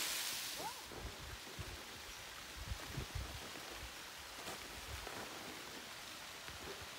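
Steady rushing hiss of a distant waterfall, with irregular gusts of wind buffeting the microphone.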